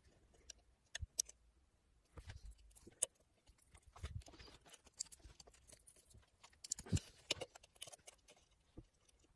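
Faint scattered clicks, taps and rubbing of hands handling plastic steering wheel parts and wiring connectors, with a few sharper clicks about a second in, about three seconds in and near seven seconds.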